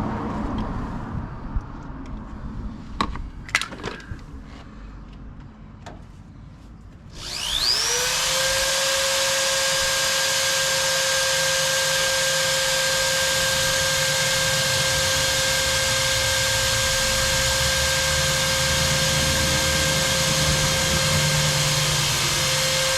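A few light clicks and knocks of handling, then about seven seconds in an electric drill spins up with a quick rising whine and runs at a steady pitch, drilling a hole in the steel truck frame.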